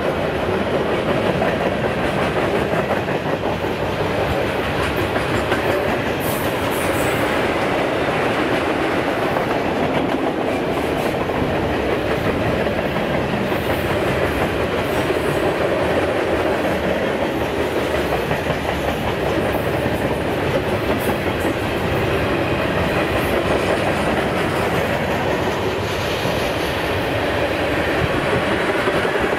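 Freight cars (boxcars, covered hoppers and tank cars) rolling past on steel wheels: a steady, loud rolling rumble with occasional sharp clicks.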